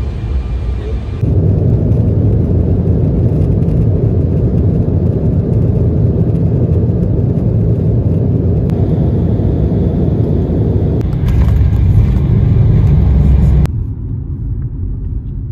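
Steady, loud rumble of an airliner's jet engines and rushing air heard from inside the cabin, with the wing flaps lowered on approach; it swells slightly near the end. It then cuts to a quieter rumble of road noise inside a moving car.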